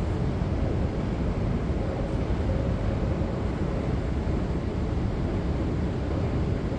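Driverless metro train passing through the station without stopping, a steady low rumble of wheels on rails that stays even throughout.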